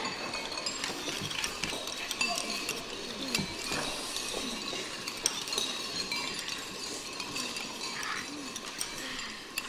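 Many spoons clinking and scraping against bowls as a hall full of boys eat, a dense scatter of small sharp clinks over a steady background hubbub.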